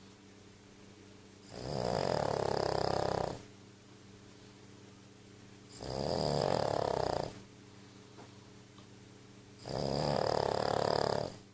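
Snoring sound effect for the story's dog: three long snores, about four seconds apart, over a faint steady hum.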